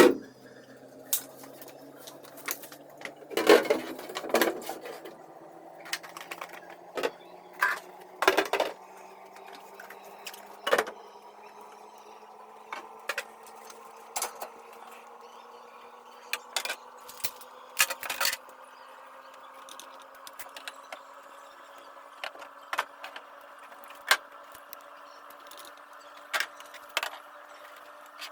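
Repeated clicks and knocks of household objects being handled and set down, over a steady hum that rises slowly in pitch throughout.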